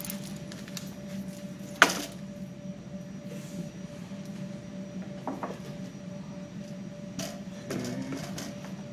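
A sharp knock about two seconds in, then a few fainter knocks and clicks, as a person handles cables and fittings at the back of an arcade cabinet, over a steady low hum.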